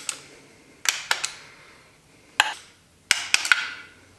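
Click-type torque wrench tightening the chain-well bolts on a Porsche M96 cylinder head to spec: a series of sharp metallic clicks as the wrench ratchets and clicks over. There are several in quick succession about a second in and again around three seconds in.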